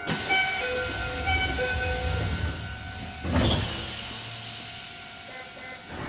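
Running sound inside a Keisei 3050 series electric train car, with steady tones and a high whine slowly falling in pitch. A sudden rush of noise comes at the start, and a louder rumbling rush about three seconds in.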